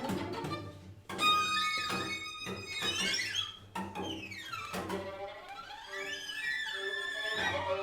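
String quartet playing contemporary music: a sudden loud accented entry about a second in, then held notes with sweeping glissandi sliding up and down in pitch.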